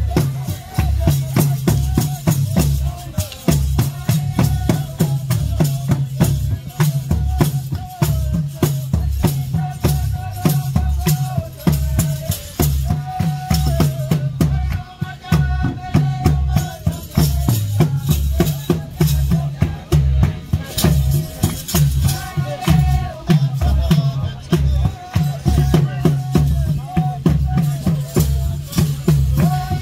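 Rwandan traditional dance music: drums beating a steady, quick pattern with a rattle shaking along and a voice singing over it.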